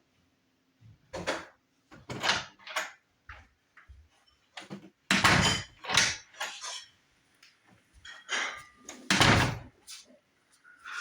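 A dozen or so irregular knocks and clunks, each short and sharp, some harder than others.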